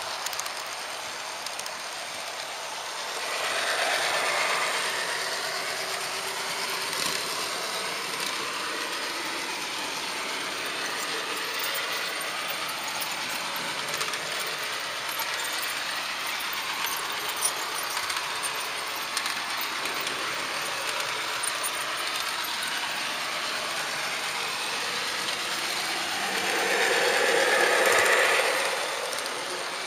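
HO-scale Märklin model train running on its track, heard from the train itself: a steady whirring, rattling roll of wheels and motor with scattered small clicks. It grows louder for a few seconds twice, about three seconds in and near the end, as the train enters and leaves a tunnel.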